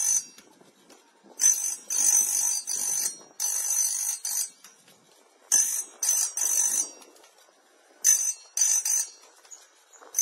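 Hardwood Mills GT28 bandsaw blade sharpener's diamond wheel grinding the faces of tungsten carbide teeth: a high-pitched grind with a thin whine in it, in repeated short bursts of up to about a second each time the head is brought down onto a tooth, with brief quiet pauses between.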